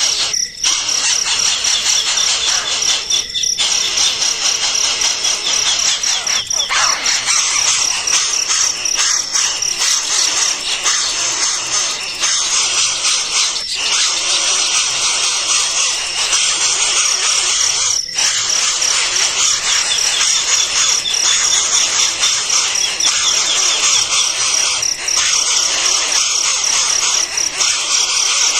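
Continuous high-pitched chirping and chirring of insects and birds, with a fast pulsing trill running throughout.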